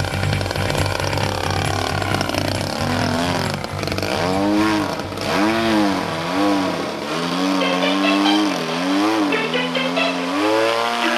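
Desert Aircraft DA-50R single-cylinder two-stroke petrol engine of a radio-controlled Pitts S-12 model biplane in flight, its pitch swooping up and down again and again as the throttle and the plane's passes change. Background music runs underneath and takes over near the end.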